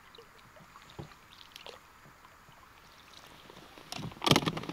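Water sloshing against a small boat, with a few light knocks, and a louder splashing clatter near the end.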